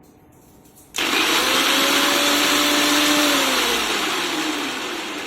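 Preethi Peppy Pro mixer grinder motor starting abruptly about a second in at speed 1, spinning the chopper jar's blade through whole green chilies. After a couple of seconds it is switched off and its whine falls steadily as the motor winds down.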